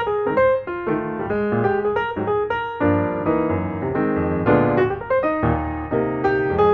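Background piano music: a lively melody of quick struck notes over a bass line.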